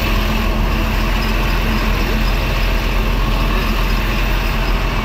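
Steady, loud street noise of vehicle engines running, with a constant low rumble and hum.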